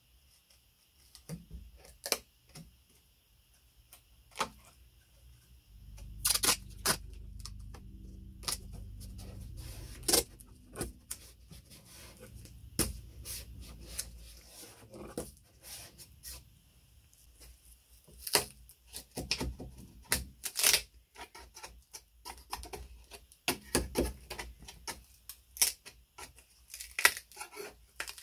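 Irregular clicks, knocks and small rattles of parts and tools being handled at a workbench, with a low hum underneath from about six to fourteen seconds in.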